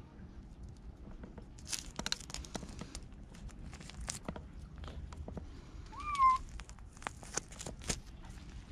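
A cat's single short meow about six seconds in, rising and then levelling off, amid scattered clicks and scrapes on gritty concrete.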